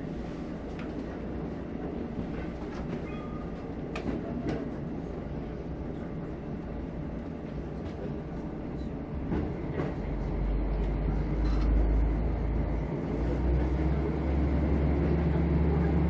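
KiHa 54 diesel railcar running along the line, heard from its rear driver's cab: a steady rumble of wheels on rail with a few sharp clicks from the track. About ten seconds in, a low engine drone comes up and gets louder, dipping briefly a few seconds later, then carries on.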